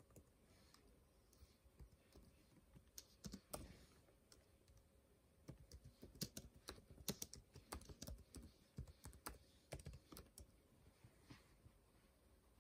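Faint typing on a computer keyboard: scattered key clicks, coming thickest in a quick run about halfway through.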